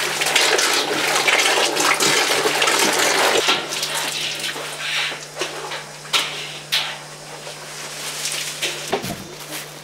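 Water splashing and sloshing as dyed cotton is kneaded in a rinsing tank, loudest for the first few seconds. Then quieter dripping and a few wet slaps as a skein of naturally dyed yarn is twisted and wrung out over the tank.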